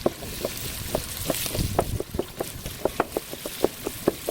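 Pork and scallions frying in a pan over a wood fire: a steady hiss with many irregular clicks and taps, and a brief low rumble about halfway through.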